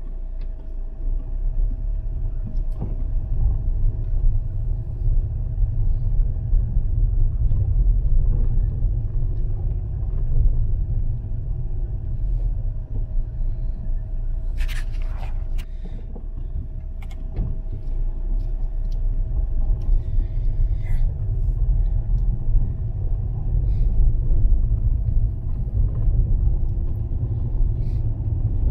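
Fiat Panda 4x4 driving on a snow-covered road: a steady low rumble of engine and tyres with a faint steady whine over it. A few sharp knocks come about halfway through.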